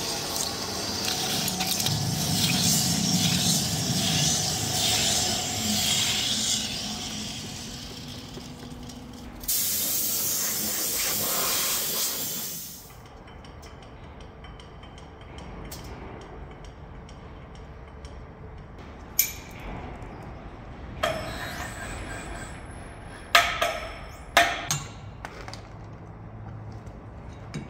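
Hafco TM-26120G centre lathe machining the head flange off a steel hydraulic cylinder barrel, with a steady rush of cutting noise and machine hum. About nine seconds in a loud hiss starts and cuts off after about three seconds. After that it runs quieter, with several sharp metallic clinks in the second half.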